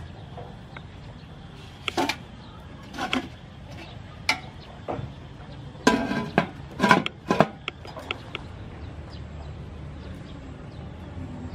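Aluminium steamer pot and its domed lid knocking and clanking as they are handled and the lid is set on. There are single metallic knocks, then a louder cluster of clanks about six to seven and a half seconds in.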